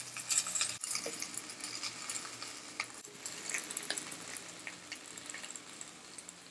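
Fresh ponnaganti (sessile joyweed) leaves sizzling and crackling in a pan of hot oil just after being added, the sizzle dying down gradually.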